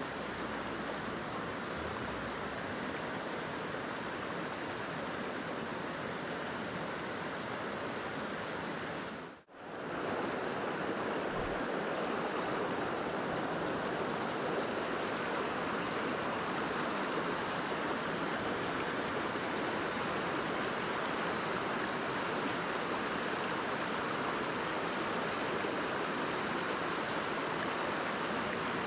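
Small mountain stream running fast over and between mossy boulders: a steady rushing wash of water that cuts out for a moment about nine seconds in and then resumes.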